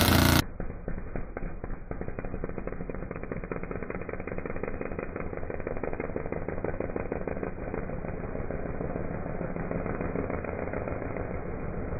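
Big-block V8 of a mud-drag pickup racing through the mud pit, played back in slow motion: a low, muffled, rapid rattle with no high end. It starts abruptly about half a second in.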